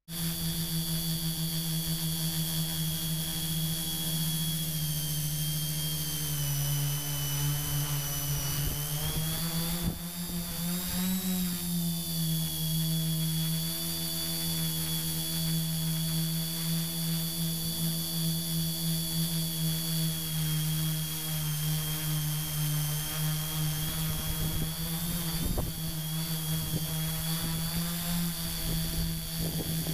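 The three motors and propellers of a Flitetest Batbones tricopter, heard from the GoPro on board, run with a steady multi-toned buzzing whine. The pitch rises briefly about ten seconds in as the throttle changes, then settles.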